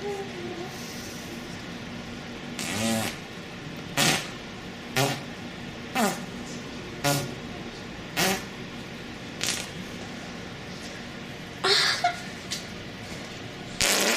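A string of about nine short fart sounds at roughly one-second intervals, some sliding up or down in pitch, the longest and loudest near the end.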